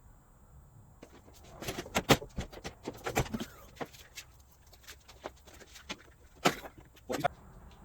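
Irregular clicks and knocks of a portable air compressor and its parts being handled and unpacked, with sharper knocks about two seconds in, about three seconds in, and twice near the end.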